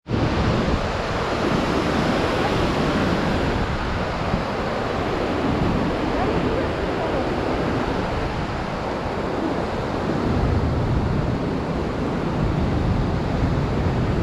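Steady rush of cascading water from a mountain waterfall.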